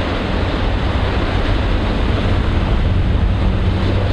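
Wind buffeting the microphone and water rushing past a boat underway at speed, over the steady low drone of an outboard motor.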